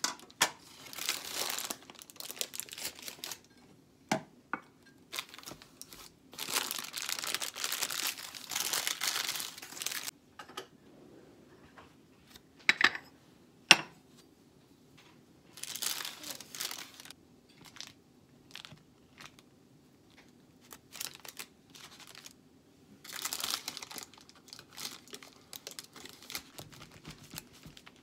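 Baking paper crinkling and rustling in several bursts as it is handled and folded back from a bake, with a few sharp knocks, the loudest about two-thirds of the way through.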